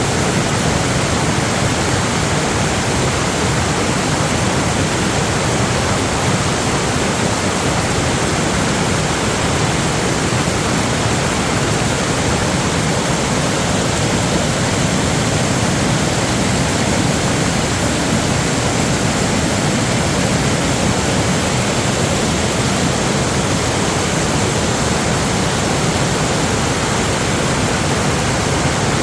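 Steady, loud rush of running water.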